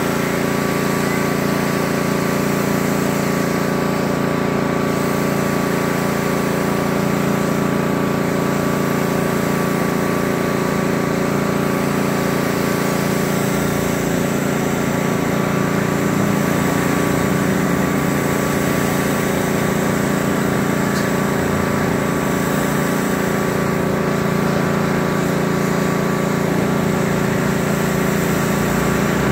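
Pressure washer running steadily, its small engine holding one pitch under the hiss of the high-pressure spray on the concrete sidewalk.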